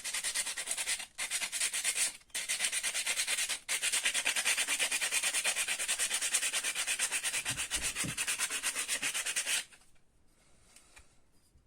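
Fine sandpaper rubbed rapidly back and forth over the core of a PME magnetic starter, scouring off the corrosion on the pole faces that makes the starter hum. The strokes run fast and even with three brief breaks, then stop suddenly about ten seconds in.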